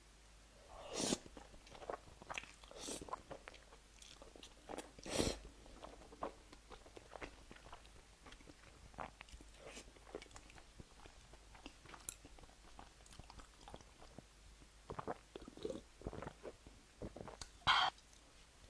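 Close-miked chewing and biting of crunchy food, with a few louder crunching bites among steady smaller mouth clicks.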